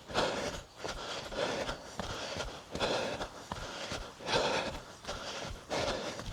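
A runner's heavy, rhythmic breathing, a loud breath about every second and a half, with his footfalls sounding as sharp thuds in between.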